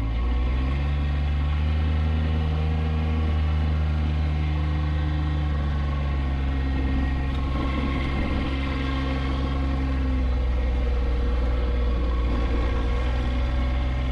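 Motor vehicle engine running steadily. It picks up revs about half a second in, then holds an even pitch.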